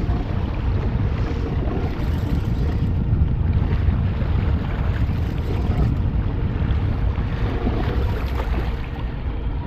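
Wind buffeting the microphone out on open water, a steady low rumble, with a faint steady hum beneath it.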